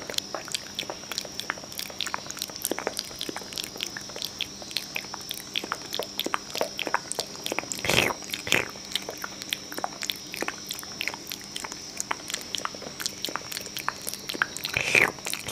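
Close-miked ASMR mouth sounds: a fast, irregular run of wet clicks and smacks, with a louder burst about eight seconds in and another near the end.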